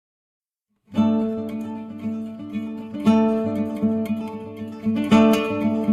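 Acoustic guitar intro music, plucked and strummed chords that begin about a second in, with fresh strums about every two seconds that ring and fade.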